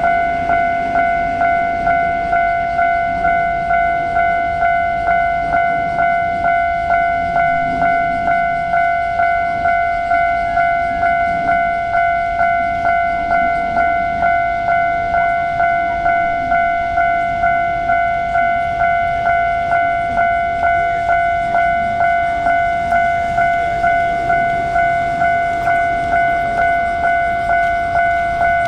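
Japanese railroad crossing warning bell ringing, a ringing tone struck over and over in an even rhythm of about three strikes every two seconds, signalling that the crossing is closed for an approaching train.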